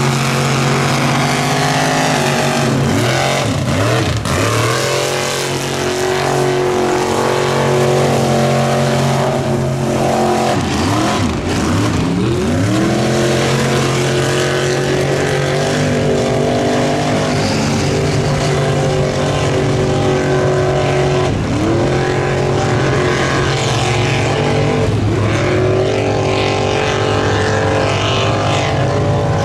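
Lifted mud trucks' engines revving hard as they drive through deep mud, several running at once. Their pitch drops and then climbs again every few seconds as the throttle is worked.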